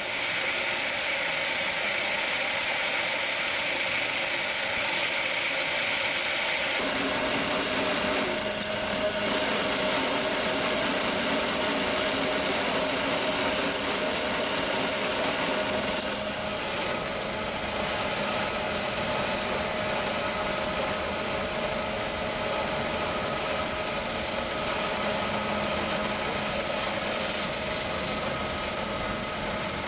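Steady running noise of sawmill machinery, a dense mechanical drone with a steady hum in it. Its tone shifts abruptly about seven seconds in and several times after.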